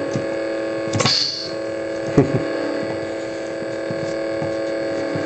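Lightsaber idle hum from a Crystal Focus 4.0 sound board playing through the hilt's speaker, a steady pitched drone. A brief crackling burst comes about a second in and a single sharp click a little after two seconds.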